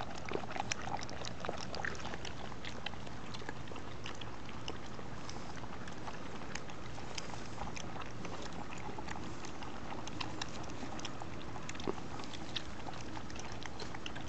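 Puppies eating and licking food, partly from a hand-held plastic tub: many small irregular clicking and smacking sounds over a steady background hiss.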